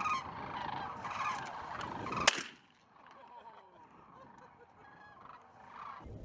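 A flock of birds calling together, with one sharp crack about two seconds in, after which the calls drop off to a fainter level.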